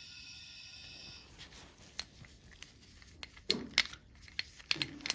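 Metal parts of a disassembled Mercury 4 hp outboard engine being handled, with scattered light clicks and a few sharp knocks in the second half. A faint steady high hum stops about a second in.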